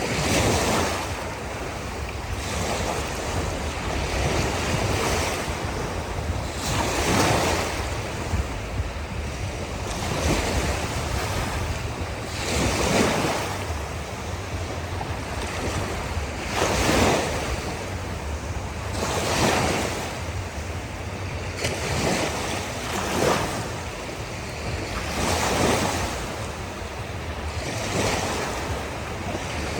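Ocean surf breaking on a beach: a wash of waves that swells into a louder surge every few seconds, some bigger than others, over a steady low rumble.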